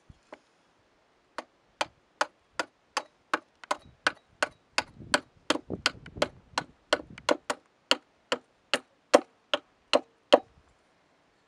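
Steady rhythmic knocking from a hand tool striking over and over, about two and a half sharp knocks a second, starting about a second and a half in and stopping shortly before the end.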